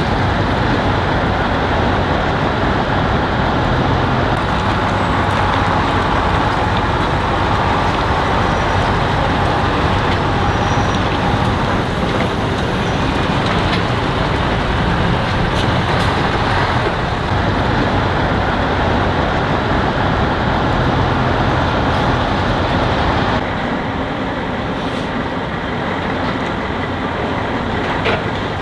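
Diesel engines of heavy Tatra military trucks running as the trucks drive past one after another, a loud, steady rumble. It turns a little quieter near the end.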